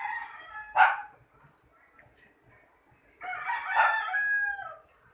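Rooster crowing: one crow trails off in the first second, then another long crow starts about three seconds in and lasts nearly two seconds.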